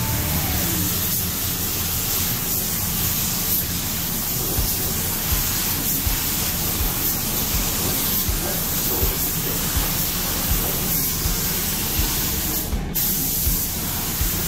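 Gravity-feed automotive paint spray gun hissing steadily as compressed air, at about 30 PSI, atomises black single-stage urethane paint. There is one short break in the hiss near the end before it resumes.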